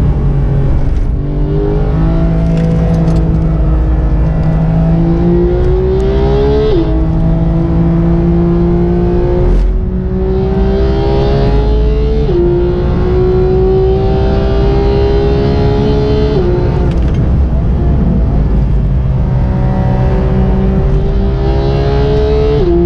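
Porsche 991.2 GT3's naturally aspirated 4.0-litre flat-six at full throttle, heard from inside the cabin. It climbs steadily in pitch through each gear, and the pitch drops sharply at each upshift, about five times.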